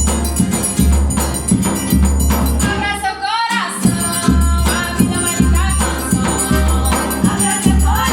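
Forró band playing: a zabumba drum beats a steady low rhythm under a triangle's ringing and an accordion melody. The drum drops out for a moment about three seconds in, then the groove comes back.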